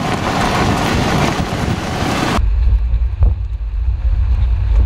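Wind and road noise from a car driving at speed, first an even rushing hiss; about two and a half seconds in it changes abruptly to heavy low wind buffeting on the microphone.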